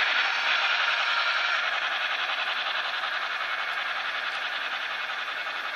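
Model train, double-headed by two 2-8-0 locomotives, running along the track with a steady rolling noise of wheels on rail that slowly fades as the train moves away.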